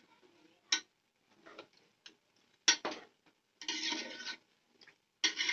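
Metal spoon stirring a thin mutton curry in a metal pot, scraping and clinking against the pot's side. There are two sharp, louder clinks, about a second in and near three seconds, and stretches of scraping later on.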